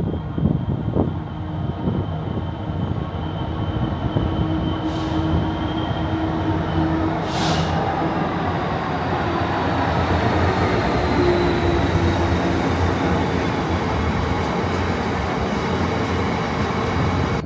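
A train running through the station: steady rail and engine noise with a low hum and a faint high whine, swelling slowly, and two short hisses about five and seven seconds in.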